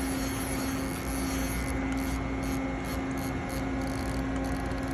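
Steady machine hum of an idling CNC lathe, with one constant tone and no distinct knocks or cuts.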